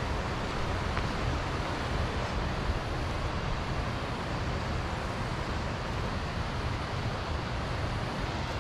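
Steady rushing of a waterfall: an even wash of falling water with no breaks.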